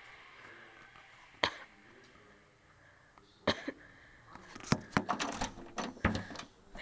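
A few separate sharp clicks and knocks, then a quick flurry of them about two-thirds of the way in.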